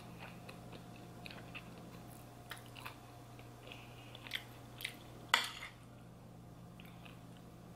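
Close-up chewing and mouth sounds of someone eating, with scattered small clicks and one sharper click about five seconds in, over a faint steady hum.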